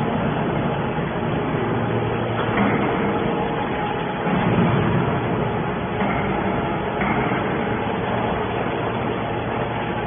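Hydraulic scrap-metal baler running while it presses scrap aluminum: a steady mechanical din with a low hum, swelling louder briefly a few times.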